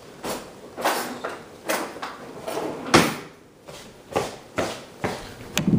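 Cardboard shipping box being pulled and torn open by hand, its glued flaps scraping and ripping in irregular bursts, with one sharper, louder crack about three seconds in.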